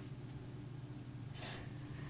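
Water heater making its noise: a steady low hum with a few faint ticks and one short scratchy crackle about one and a half seconds in.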